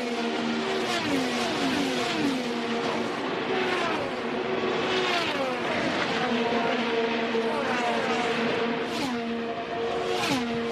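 A pack of IndyCar race cars running at speed, their twin-turbo V6 engines overlapping, each engine note sliding down in pitch again and again as the cars go by and change speed.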